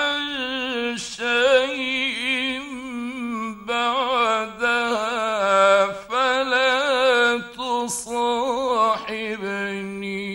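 Male Qur'an reciter chanting in the ornamented mujawwad style: long, drawn-out melismatic phrases with a wavering, gliding pitch, broken by a few short pauses, the last phrase ending near the end. It comes from an archival 1950s radio recording.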